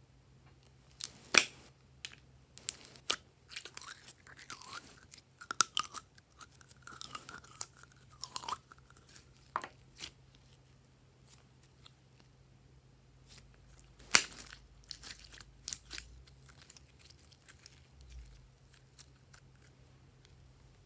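Glossy glitter slime squeezed and squished by hand, with wet squelching, crackling and small air pops, some of them squeaky. Two sharp clicks stand out, one about a second in and one past the middle.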